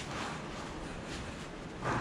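Soft swishes of a cloth rag being rubbed and handled, over a steady faint hiss.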